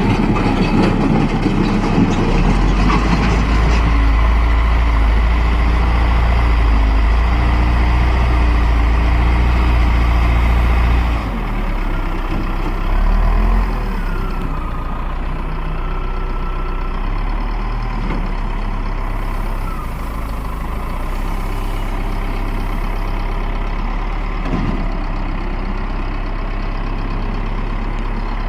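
Caterpillar 950B wheel loader's diesel engine running loudly and steadily. About eleven seconds in it drops to a quieter idle, with a brief rev a couple of seconds later, then settles into a steady idle.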